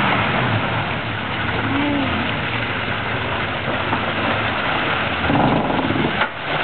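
Dodge Ramcharger's engine running as the truck crawls through a deep mud hole on Super Swamper IROK tires, with mud and water churning and spattering around the tires.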